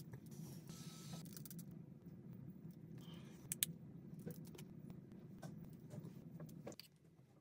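Skincare packaging and containers handled close to the microphone: a brief rustle, light clicks and taps, and one sharp click about three and a half seconds in, over a steady low hum that drops away near the end.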